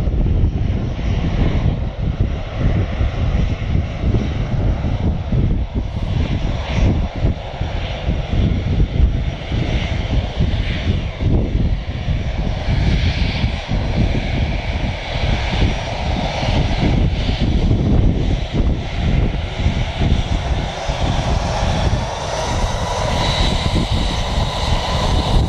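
Airbus A321 airliner's jet engines running at taxi power: a steady whine over a low, unevenly pulsing rumble. The whine grows louder and brighter in the last few seconds as the jet passes close by.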